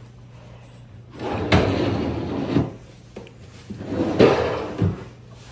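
Wooden dresser drawers sliding open and shut twice, each a sliding rub of a second or so with a knock as the drawer stops.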